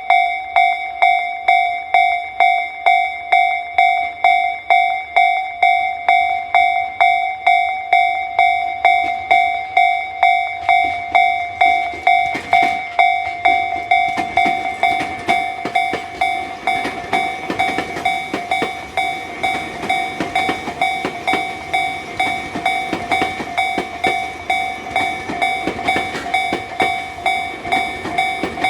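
Japanese railway level-crossing warning bell ringing in a steady, rapidly repeating ding. About twelve seconds in, a Tobu Isesaki Line train begins passing over the crossing, its rumble and clicking wheels running under the bell.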